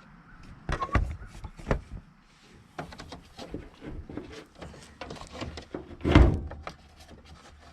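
Clicks and knocks of a 2005 Nissan Sentra's rusted hood latch being worked open by hand through the cracked-open hood, with one louder thunk about six seconds in. The latch's return spring is broken, so the hood release cable alone does not free it.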